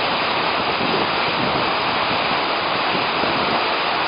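Waterfall rushing, a steady, loud, unbroken hiss of falling water.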